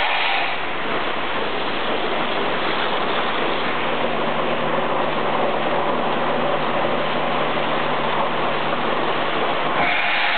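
Cleaning water and air rushing steadily through a milking cluster's claw and hoses during the automatic milking-unit wash. A steady low hum joins about four seconds in.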